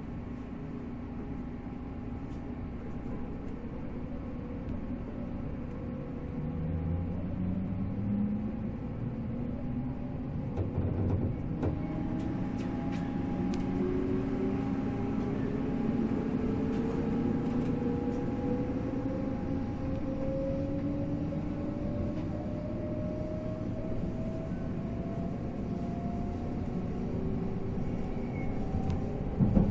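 MT54 traction motors of a 485-series electric train accelerating, their hum and gear whine rising steadily in pitch from about six seconds in over the rumble of the running gear, with scattered clicks and a cluster of knocks near the end.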